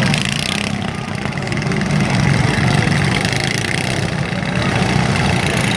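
Several riding lawn mower engines running at once in a derby, a steady, loud engine rumble.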